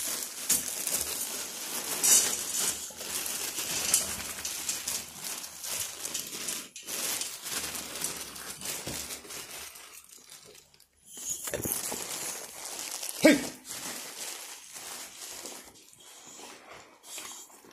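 Plastic bag crinkling and rustling as a hand scoops dry dog food out of it and into a bowl, with a short lull partway through. A sharp knock about three-quarters of the way through.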